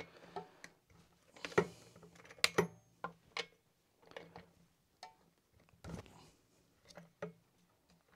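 Irregular metallic clicks and taps of a chainsaw combination spanner on the two bar nuts of a Hyundai 62cc chainsaw's side plate as the nuts are slackened off.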